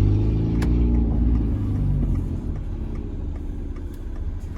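Peugeot 206's 1.4 8-valve four-cylinder engine running through a straight-through exhaust with no catalytic converter. It is loud for the first couple of seconds, then eases off as the throttle drops. There is a single sharp click about half a second in.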